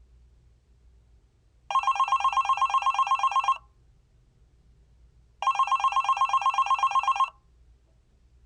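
Telephone ringing twice, each ring a rapid trill about two seconds long, with a pause of about two seconds between them.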